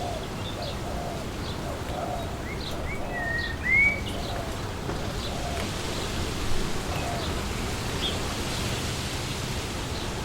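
Wind blowing through trees, a steady rush, with birds calling throughout: a series of low repeated chirps and a louder whistled call about four seconds in.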